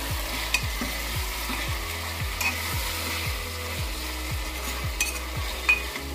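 Chopped onions and tomatoes sizzling in oil in a pressure cooker while a metal spoon stirs them, with a few light scrapes and taps of the spoon against the pot.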